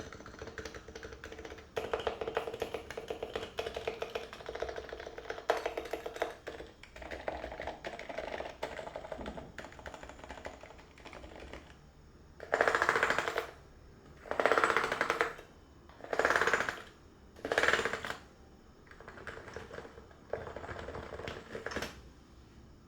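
Typing on a Norbauer Norbaforce MK III keyboard with stock Realforce R2 PFU Topre electrostatic capacitive switches (45 g rubber domes), keystrokes following quickly one after another. About halfway through come four louder bursts of rapid keystrokes, each about a second long, before lighter typing resumes.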